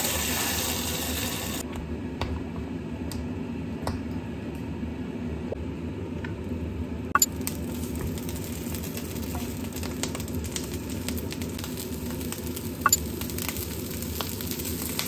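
Food frying in olive oil in a frying pan. A loud hiss in the first second or two settles into steady, quieter sizzling, with two sharp clinks partway through.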